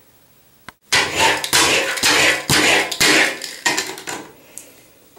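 A single click, then a plastic toy car rubbed back and forth against a hard surface in a quick run of scraping, clattering strokes about twice a second: the Hydro Wheels car being pushed backwards to wind it up for the next run.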